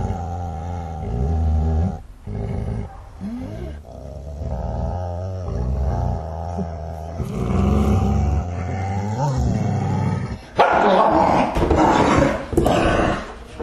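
A dog growling in long, low rumbles, then breaking into a run of loud barks about ten seconds in.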